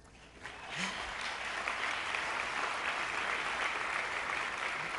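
Audience applauding, the clapping swelling in about half a second in and then holding steady.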